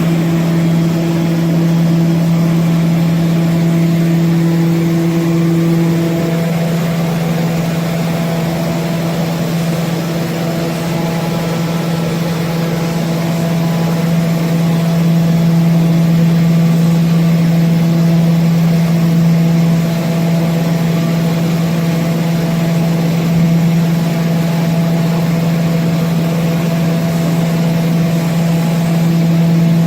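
HOMAG BOF 41/K CNC woodworking machining center running with a loud, steady hum. A higher overtone in the hum fades about six seconds in.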